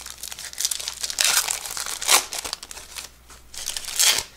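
Crinkly wrapper of a 1988 Score baseball card pack being torn open by hand and peeled off the card it has stuck to, in a run of crackling rustles. It is loudest about two seconds in and again near the end.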